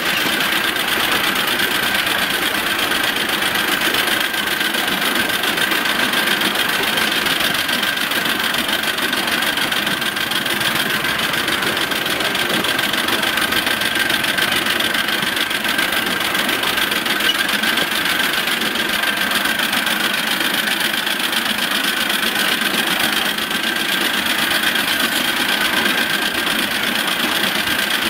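Miniature 5-inch gauge 0-6-2 live steam locomotive running steadily along the track, a fast continuous mechanical chatter that holds an even level throughout, with a faint steady high tone over it.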